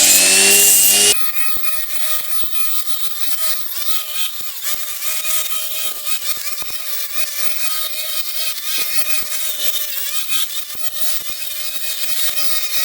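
Milwaukee M18 Fuel cordless strimmer fitted with a circular saw blade, its electric motor whining up in pitch and then, after an abrupt change about a second in, running at a steady high pitch. A hiss and scattered sharp ticks run over the steady tone.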